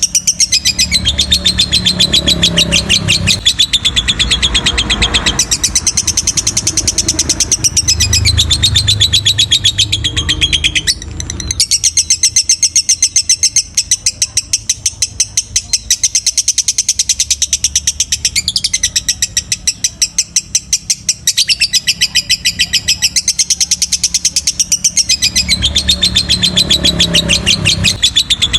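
Lovebird singing a long, fast chattering trill of rapidly repeated high notes, broken only once briefly about eleven seconds in.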